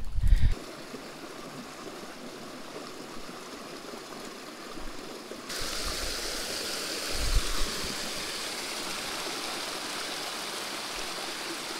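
Small rocky creek running and splashing over stones in a steady rush of water, louder and brighter from about halfway through where a little cascade is close by. A soft low thump sounds once, a little past the middle.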